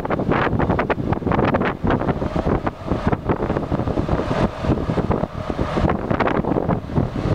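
Kubota L3300 compact tractor's diesel engine running as the tractor drives slowly, heavily overlaid by wind buffeting the microphone.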